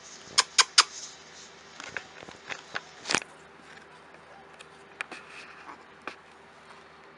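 A series of sharp clicks and taps: three quick ones about half a second apart just after the start, a louder one near the middle, and scattered smaller ones later.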